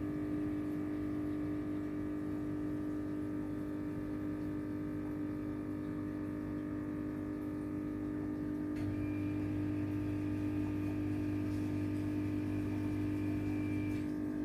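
A steady machine hum made of several held tones, with no change in level. About nine seconds in a thin higher whine and a deeper hum join it, and both stop shortly before the end.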